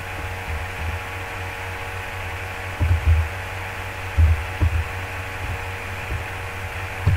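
Steady electrical mains hum with a buzz of evenly spaced tones, broken by a few dull low thumps about three seconds in and twice more just over a second later.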